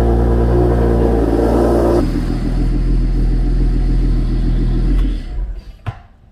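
BMW 335i turbocharged inline-six engine running, its note dropping about two seconds in, then cutting out a little after five seconds, followed by a single click.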